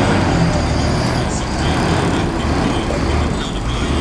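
Diesel engine of heavy earthmoving machinery running with a steady low rumble.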